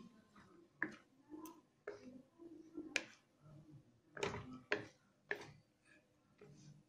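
A wooden spatula scraping and knocking against a kadai while stirring thick semolina halwa. It makes irregular soft clicks and scrapes, roughly one to two a second, with a few louder knocks in the middle.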